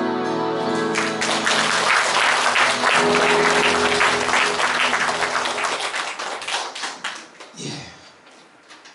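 The last notes of a song's accompaniment die out in the first second, then an audience applauds, the clapping thinning out and fading over the last couple of seconds.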